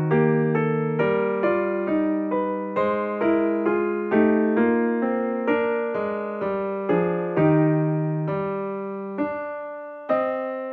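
Background music: a keyboard playing a slow, gentle melody. Notes and chords are struck about twice a second, and each fades away after it is struck.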